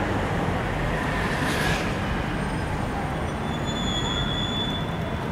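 Outdoor city traffic noise: a steady rumble of passing vehicles, with a brief hiss about a second and a half in and a short high tone near four seconds.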